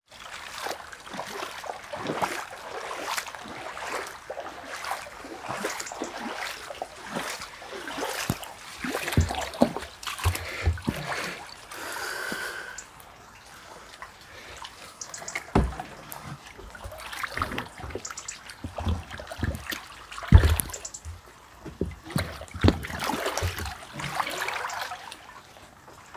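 Floodwater splashing and trickling in short, irregular splashes, with a few deep thumps, the loudest about three-quarters of the way through.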